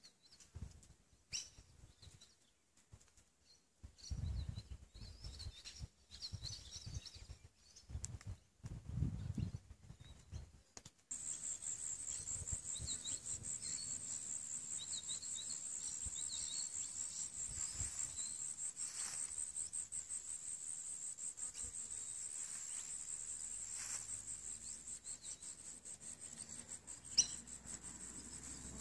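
Outdoor ambience: birds chirping, with gusts of wind rumbling on the microphone. About eleven seconds in, a steady high-pitched insect trill starts and continues alongside occasional bird chirps.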